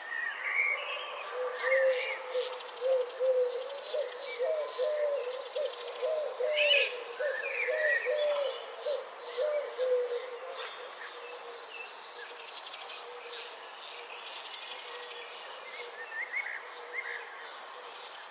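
Insects, crickets among them, keep up a steady high-pitched drone that drops away near the end. Over it, in the first half, a run of quick, low repeated calls, about two a second, and scattered higher bird chirps.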